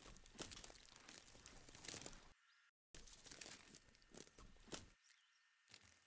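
Near silence with faint, scattered crackling and rustling ticks over a light hiss, cut to dead silence twice: briefly about halfway through and again near the end.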